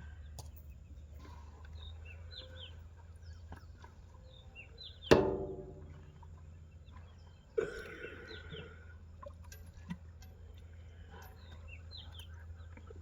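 Birds chirping over a steady low hum. About five seconds in, a loud metallic clang rings on briefly, and a duller knock follows about two and a half seconds later.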